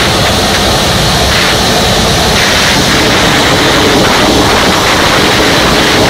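Nanchang warbird's radial engine and propeller running steadily, heard from inside the cockpit in flight as a loud, unbroken drone mixed with rushing air noise.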